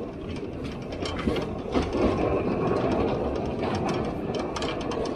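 Narrow-gauge diesel train running at speed: a steady rumble and rattle of the wheels on the track, with many short clicks.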